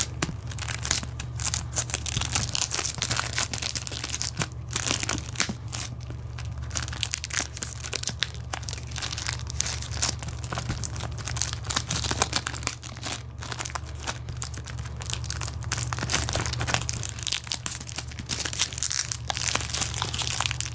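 Clear plastic wrapping crinkling and crackling as hands work it off a cardboard film-frame card, a dense, irregular run of crackles.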